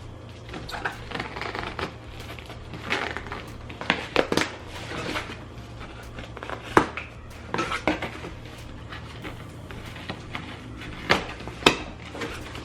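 A cardboard box and its packaging being handled and opened by hand: rustling with scattered knocks and clicks, the sharpest about seven seconds in and twice near the end.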